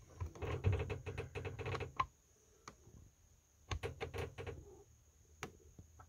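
Plastic push buttons on an RV wall thermostat clicking under a finger as the mode and set temperature are changed. A dense run of quick clicks fills the first two seconds, another comes about four seconds in, and single clicks fall between.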